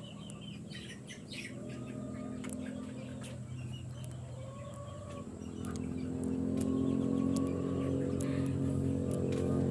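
Chickens clucking and calling in short bursts over a steady low motor hum, which grows louder about halfway through.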